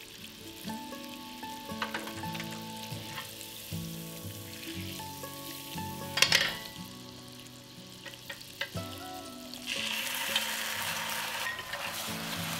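Hot caramel, cooked to deep amber, sizzling as cream is added to the saucepan: a dense hiss starts suddenly near the end. Before it there are small pops and clicks from the bubbling caramel and one sharp clack about six seconds in.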